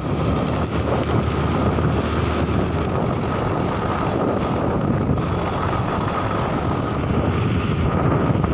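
Steady wind noise buffeting the microphone of a phone held out by a rider on a moving motorcycle, with the motorcycle running underneath.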